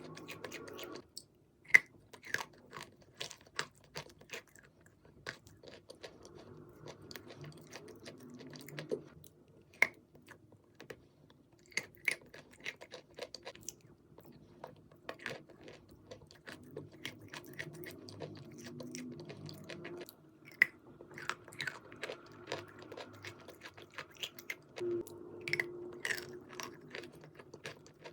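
Pieces of chalk being bitten and chewed: a few sharp snapping bites and many crisp crunches as the chalk is chewed, repeated throughout.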